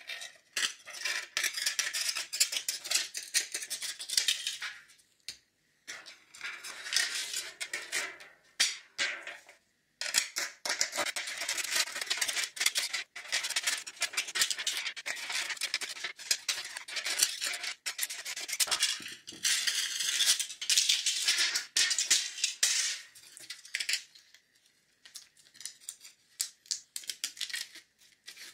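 Scissors cutting a thin aluminium foil tray, the foil crinkling and rattling as it is snipped and bent, in several spells with short pauses. It grows quieter and sparser near the end.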